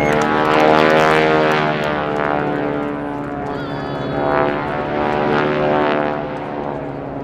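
Propeller engine of a wing-walking display aircraft flying past, a steady drone whose note falls in pitch as it goes by.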